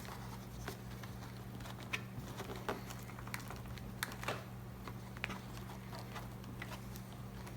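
Scattered light clicks and taps of hands handling the helmet's interior parts and the intercom's plastic pieces and wires, over a steady low hum.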